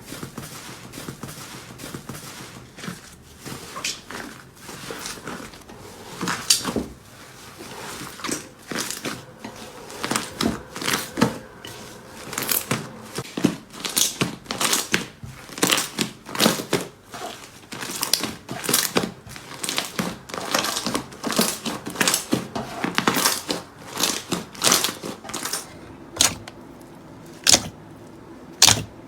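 Slime being squeezed and pressed by hand, with an irregular run of sharp crackles and pops that thins to a few separate pops near the end.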